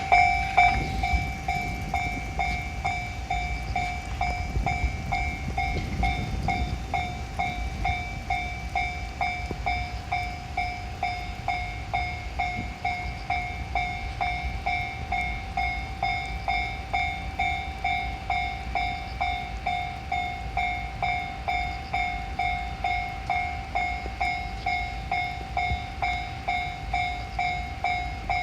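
Japanese railroad crossing warning bell ringing its repeated electronic "kan-kan" tone, about two strikes a second, steady throughout. A low rumble sits underneath, strongest in the first several seconds.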